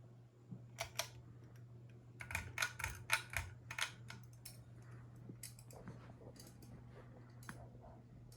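Ceiling fan with a 188mm motor running with a steady low hum, with a run of sharp, irregular clicks and ticks in the first half and a few scattered ones after.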